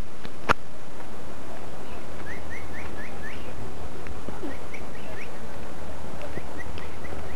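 Bird calling: quick runs of four or five short rising chirps, repeated several times, over a steady low hum. A single sharp click about half a second in.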